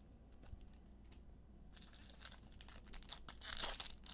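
Crinkling and tearing of a trading-card pack wrapper being opened. It starts about two seconds in and gets louder near the end, after a few faint clicks.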